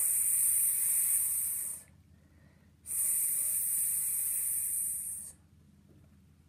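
A woman imitating a snake's hiss, a long drawn-out "ssss" made with her mouth, given twice, each about two seconds long with a short pause between.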